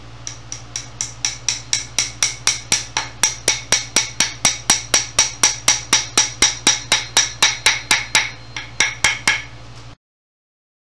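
Hammer tapping a glued joint home: a steady run of light, quick blows, about four to five a second, that then cuts off abruptly.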